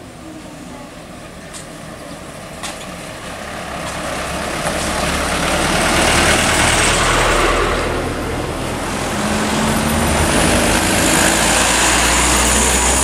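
Hino light truck's diesel engine and tyres on a broken road, getting louder as it approaches and drives past, loudest about six seconds in. Near the end a second truck's engine and hiss rise as it passes close.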